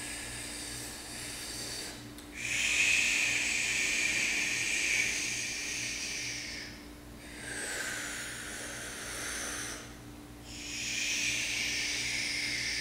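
A man breathing slowly and deeply through the mouth while holding a forearm plank: three long, drawn-out breaths of several seconds each, the first starting about two seconds in. A faint steady low hum lies underneath.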